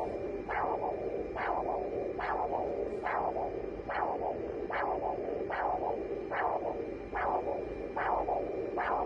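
Pulsed-wave Doppler audio of carotid artery blood flow from a Dawei ultrasound machine's speaker. It makes a whooshing pulse with each heartbeat, about 70 a minute, each one rising sharply at systole and fading through diastole.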